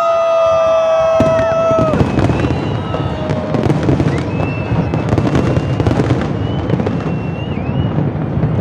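Aerial fireworks display with shells bursting in quick succession: a dense run of bangs and crackles over a steady rumble. A long, drawn-out whoop from a spectator carries over the first two seconds.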